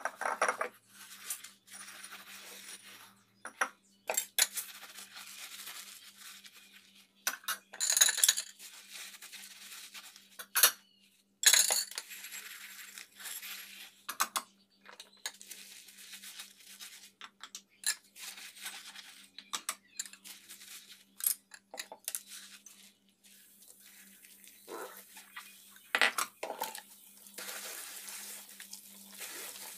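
Dishes being washed by hand in a sink: glass bowls, a metal slotted spoon and a plastic colander clink and clatter against each other as a soapy sponge scrubs them. The sharp clinks come scattered and irregular, and near the end there is a stretch of steady hiss.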